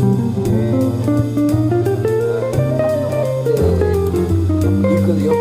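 Background music: a plucked guitar melody over bass guitar and a light drum beat.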